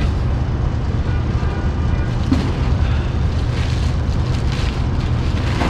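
Steady low rumble, with faint rustling of plastic packaging as an efoil battery is lifted out of its cardboard box.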